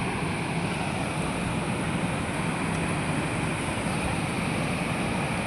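Water rushing through a dam: a steady, unbroken rush of noise with a faint low hum beneath it.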